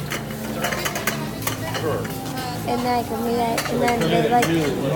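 Busy restaurant kitchen at service: plates and utensils clinking and clattering over a steady sizzle of frying, with voices in the background partway through.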